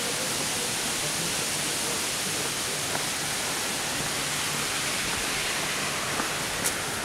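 A steady rushing hiss, with a sharper click near the end.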